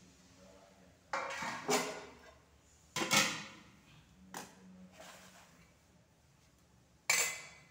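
Metal kitchenware clattering: a lid lifted off a kadhai, a ladle and steel plates knocking together in several short clanks, the last near the end.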